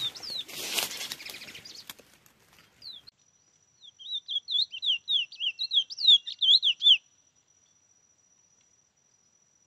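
A rustling noise with a few falling whistles for the first couple of seconds. Then a chestnut-bellied seed finch (curió) sings a quick run of sweeping whistled notes for about three seconds.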